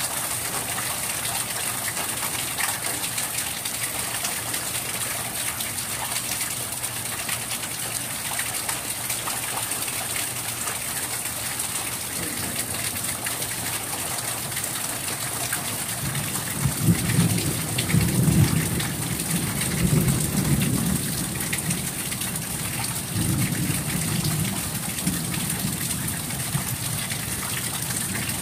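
Steady rain falling, with a low rumble of thunder rolling in about two-thirds of the way through and a second, weaker rumble a few seconds after it.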